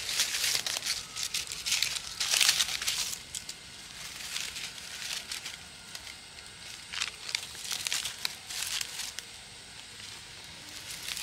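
Dry leaves crinkling and rustling in short irregular spells as hands tuck them in around split wood on a small smoking campfire, loudest about two and a half seconds in.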